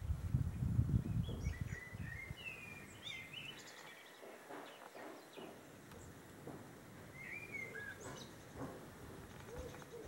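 Songbirds singing short whistled, warbled phrases, with a low rumble on the microphone in the first two seconds. A pigeon's low coo comes in near the end.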